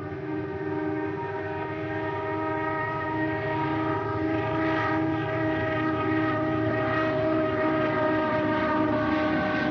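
Train horn held in one long, unbroken blast over the rumble of a moving train, growing steadily louder as the train approaches.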